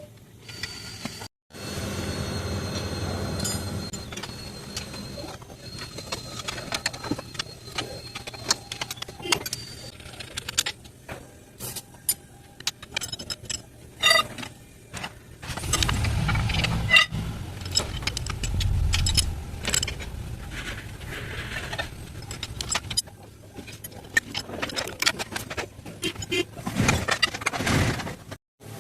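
Workshop noise of metal hand tools clinking and knocking against engine parts, many sharp irregular clicks, with a louder low rumble for a few seconds just past the middle.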